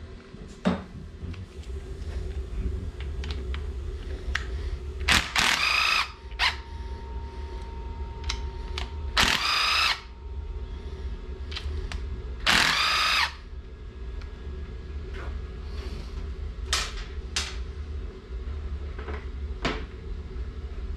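A DeWalt 12-volt cordless drill/driver whirring in three short bursts of about a second each, backing out the rocker-arm bolts. Short clicks and knocks of the tool and parts come between the bursts, over a low steady hum.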